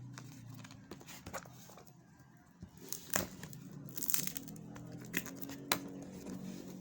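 Packaging being torn open and crinkled by hand, with a few sharp clicks.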